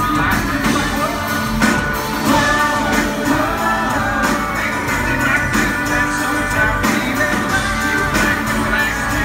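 Live country-rock band playing loudly, with electric guitars and drums under a male lead singer.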